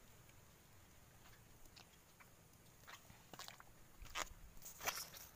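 Faint footsteps of someone walking in flip-flop sandals along a fallen log: soft crunches and clicks that get louder from about three seconds in as the steps pass close by.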